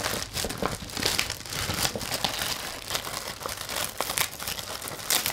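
Clear plastic packaging bag crinkling in irregular crackles as it is handled and pulled open.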